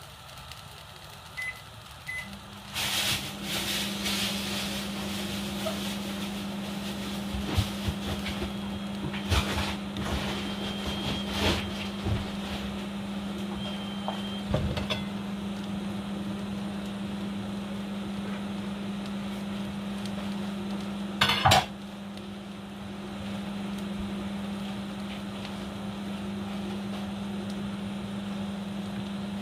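Pots and pans clinking and knocking on a kitchen stove over a steady low hum that starts about two seconds in, with a louder clatter a little after twenty seconds.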